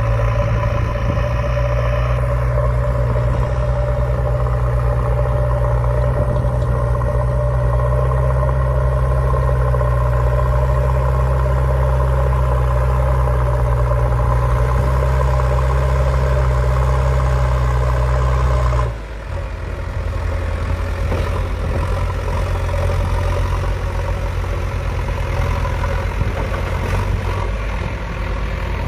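A JCB backhoe loader's engine running steadily with a deep low rumble. About two-thirds of the way through, the note changes suddenly and the low rumble thins out.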